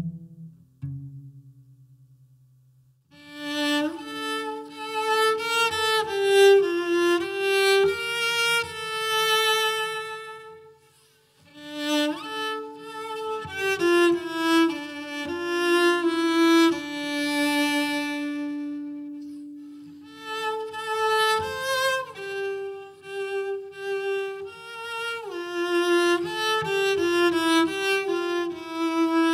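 Background music: a bowed violin melody with vibrato over a lower held string line. Near the start and again about a third of the way in, the music fades away briefly before the melody comes back in.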